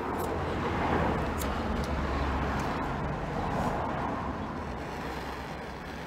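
Handheld gas blowtorch running, its flame giving a steady rushing noise.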